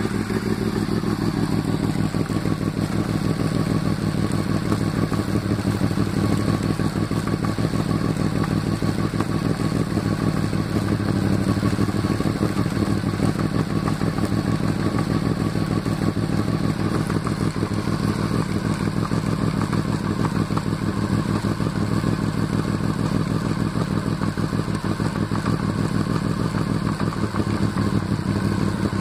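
Honda VFR Interceptor's V4 engine idling steadily in gear on its stand, turning the rear wheel and chain.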